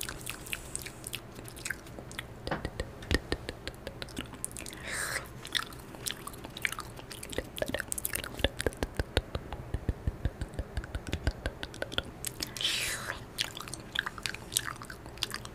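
Close-up ASMR mouth sounds: quick, irregular wet clicks, lip smacks and mock chewing and nibbling right at the microphone. Twice a longer breathy swish comes through, about five seconds in and again near the end.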